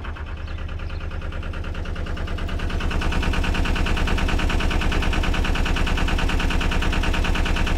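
Narrowboat's diesel engine running with a steady fast chugging beat of about nine pulses a second, growing louder about three seconds in as the boat is manoeuvred in to moor.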